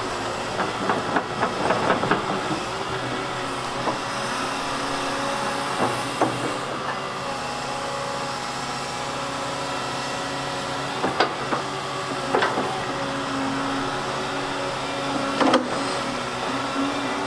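Volvo excavator's diesel engine running steadily, with a burst of clanks near the start and single sharp knocks every few seconds after that.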